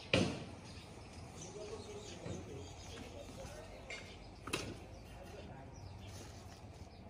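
A sharp knock right at the start and a second, weaker one about four and a half seconds in, over a quiet outdoor background with faint distant voices.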